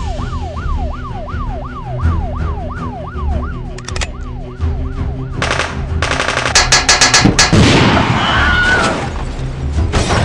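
Police siren sound effect in a fast yelp, rising and falling about three times a second over dramatic background music. About five and a half seconds in it gives way to a burst of rapid gunfire, followed by a harsh noisy stretch.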